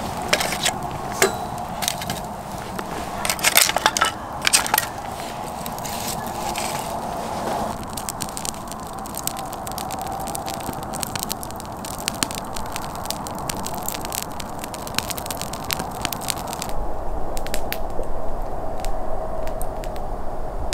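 Wood fire in a small wire-frame fire pit crackling and hissing, with sharp pops that are thickest a few seconds in. Near the end the crackling fades and a low rumble takes over.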